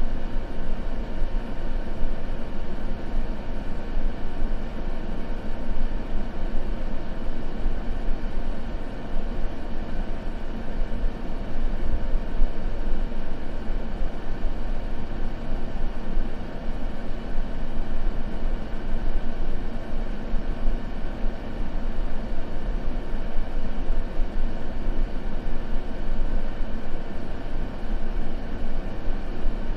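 Continuous white-noise ambience: a steady, even hiss that is heavier in the low end, with no crackles or other events.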